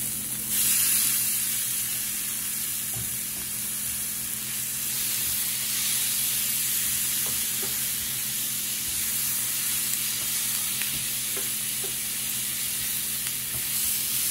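Marinated shrimp going into a hot pan of sautéing bell peppers and scotch bonnet: the sizzle jumps up about half a second in and carries on as steady frying. A few light clicks come from tongs stirring.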